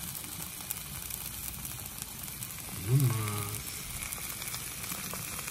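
Shrimp, potatoes and peppers sizzling steadily on the hot steel of a Blackstone 36-inch flat-top griddle. About three seconds in comes a short, low hum from a man's voice, the loudest moment.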